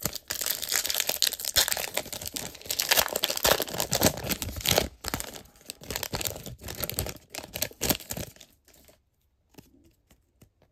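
Foil wrapper of a Panini Chronicles WWE trading card pack being torn open and crinkled, a dense crackle that stops about nine seconds in, followed by a few faint taps as the cards are handled.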